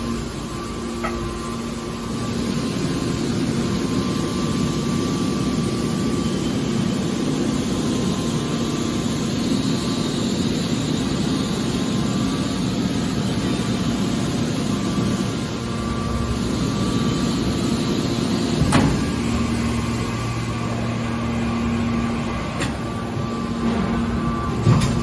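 Hydraulic metal baler running: a steady machine hum with a few fixed tones over a noisy rumble, broken by two sharp knocks, one about three quarters of the way through and one at the very end.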